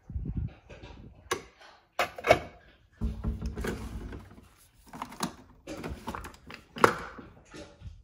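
Kitchen handling knocks and clicks: a ceramic mug taken out of a cabinet and set on a Keurig 2.0 coffee brewer's drip tray, and the brewer's lid lifted open and pressed shut, with the sharpest click near the end.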